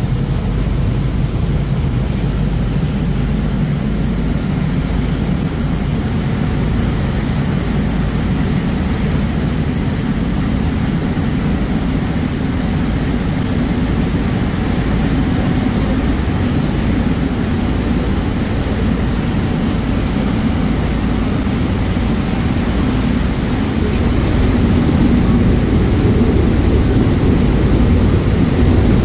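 Harbour ferry's diesel engines running under way, a steady low drone over churning propeller wash and wake water; the drone grows a little louder about three-quarters of the way through.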